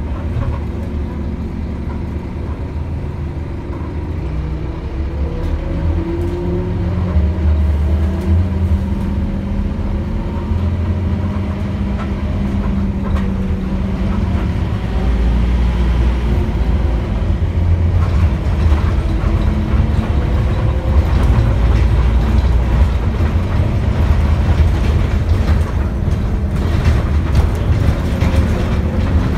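Scania N230UD Omnicity double-decker bus's five-cylinder diesel engine running under way, heard from on board. There is a steady low drone, and the engine's pitch glides up and down as the bus pulls and eases off.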